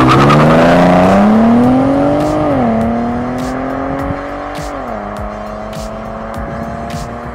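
Ford Taurus SHO's twin-turbo EcoBoost V6 accelerating hard away. The engine note climbs, then drops sharply at an upshift between two and three seconds in and again about five seconds in, and fades as the car pulls away. Faint background music runs underneath.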